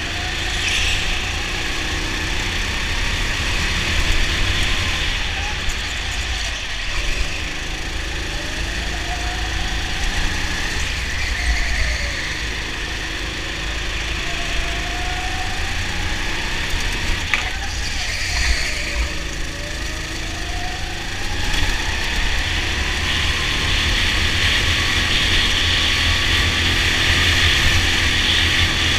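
Go-kart engine heard from on board, its pitch rising and falling again and again as the kart speeds up on the straights and slows for the corners, over a steady hiss.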